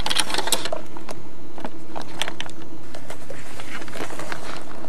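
Steady hum inside a car, with clusters of sharp clicks and crackles near the start and again around two seconds in.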